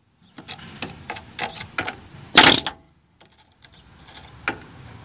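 Hammer striking a chisel against the sheet-steel lower door pillar to knock off a pop-riveted patch panel: light taps and clinks, then one loud metal-on-metal strike about two and a half seconds in, then a few more light taps.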